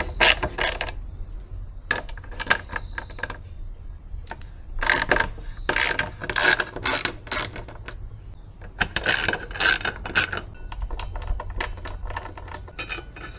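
Hand socket ratchet clicking in several short bursts as 12 mm bolts are undone.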